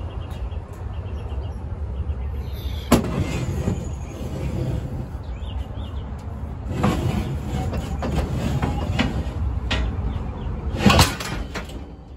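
A quarter-inch steel plate being carried and shifted by hand, with knocks and rattles about three seconds in and a louder clatter near the end. A steady low rumble runs underneath.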